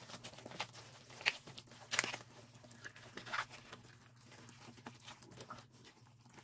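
Rubber-gloved hands working ponytail radishes through thick chili-paste seasoning in a plastic bowl: faint, scattered wet squelches and soft smacks, over a low steady hum.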